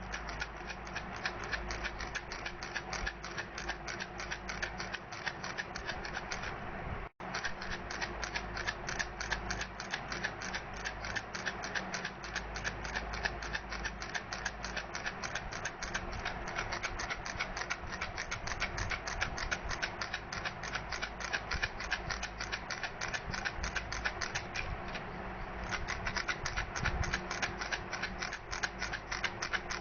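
Baby rattle shaken steadily, giving a rapid, even clicking that breaks off for an instant about seven seconds in.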